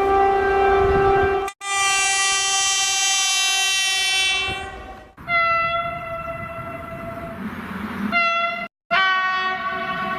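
Train horns: a series of sustained, steady horn blasts, each cut off abruptly and followed straight away by another horn of a different pitch, about four in all.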